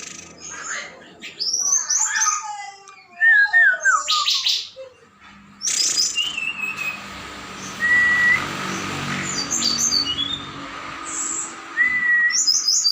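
Several birds calling at once: a mix of warbling song with fast rising and falling glides, sharp high chirps, and short level whistles.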